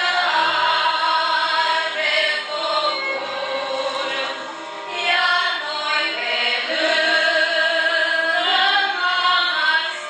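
A group of children singing a colindă, a Romanian Christmas carol, together into microphones.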